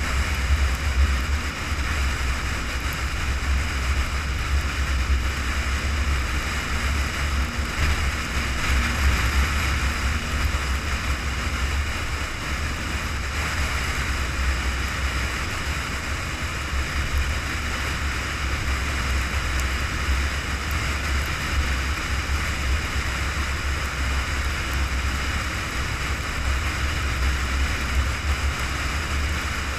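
Steady road and wind noise of a car cruising at highway speed on pavement: a deep, constant rumble with an even hiss above it.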